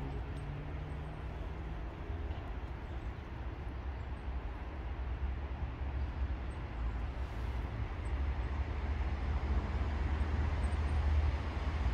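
Steady low outdoor rumble, slowly getting a little louder toward the end.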